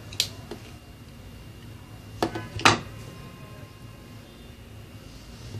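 Hard plastic clicks and knocks of Play-Doh toy tools being handled and set down on a tabletop: one click just after the start, a fainter one soon after, then two sharper knocks a little past two seconds in, the second the loudest.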